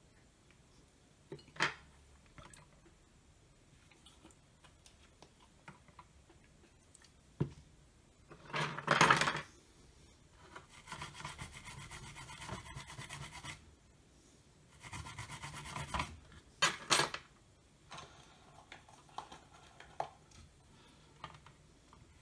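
Toothbrush bristles scrubbing a circuit board wet with isopropyl alcohol to clean off flux residue after soldering. It comes in several short bouts of rapid scratchy brushing, with the loudest scrape about nine seconds in.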